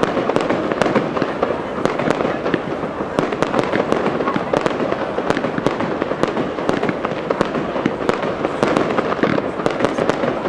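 Japanese aerial fireworks display going off in a dense, continuous barrage: many rapid bangs and crackles overlapping with no pause.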